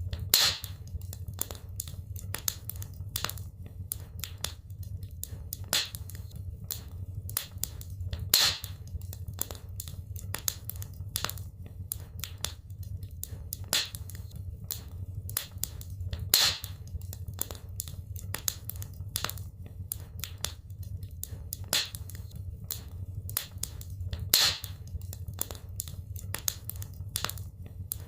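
Wood fire crackling in a fireplace: a steady run of small crackles with sharper, louder pops every few seconds over a low, steady rumble of the flames.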